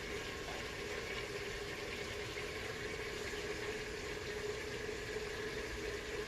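Food cooking in a pot on a stovetop: a steady noisy hiss with a faint steady hum beneath it.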